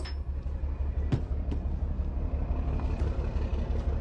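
Diesel truck engine idling, a steady low rumble, with a couple of light clicks just after a second in.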